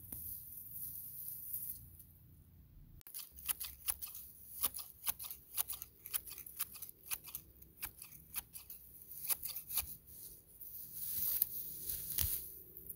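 Hand garden shears snipping through grass in many quick, irregular clicks, with a louder rustle of grass near the end.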